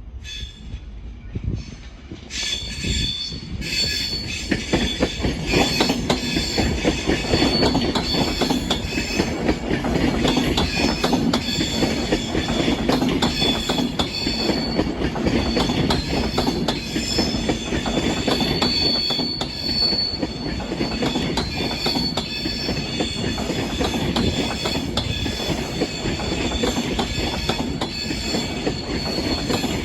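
A train running on the rails, with a steady rumble and clatter and a high-pitched wheel squeal over it; the sound builds up over the first few seconds, then holds.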